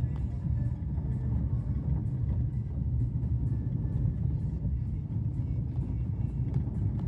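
Steady low rumble of a GWM Tank 300 four-wheel drive on the move, engine and tyre noise on a snowy track.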